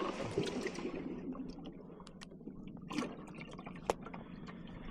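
Water splashing and trickling, with scattered small clicks and knocks, the sharpest a little before the end.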